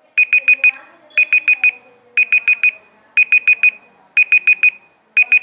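Online countdown timer's alarm beeping as it reaches zero: quick groups of four high beeps, one group about every second. It signals that the three-minute noodle cooking time is up.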